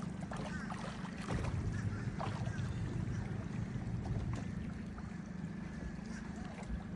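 Motorboat engine running steadily with a low hum, a little louder for a few seconds from about a second in.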